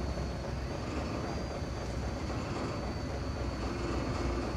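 Diesel engine of heavy road-building equipment running steadily, a low rumble with a faint steady high whine over it.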